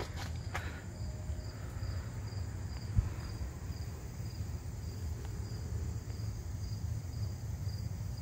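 An insect chirping steadily, about two high chirps a second, over a low background rumble, with a single short knock about three seconds in.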